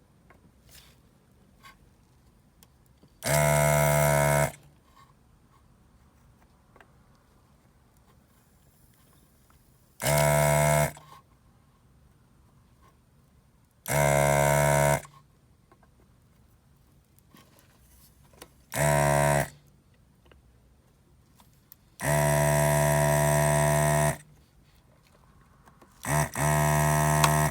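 An electric desoldering gun's vacuum pump buzzes in six short bursts, each one to two seconds long, at a steady pitch, as the solder is sucked off one relay pin at a time on the dryer's control board.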